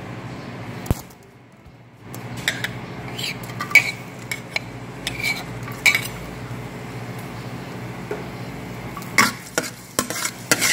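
A spoon knocks and scrapes against a small bowl and the wok as chopped garlic is tipped into a little oil in the wok: a string of sharp clicks in the middle. Near the end a metal spatula scrapes across the wok in a quick cluster of knocks as the garlic is stirred.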